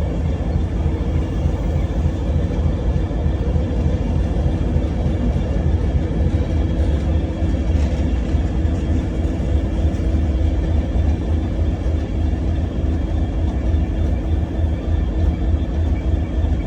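Steady low rumble of a train at the platform, with a constant hum over it that neither rises nor falls.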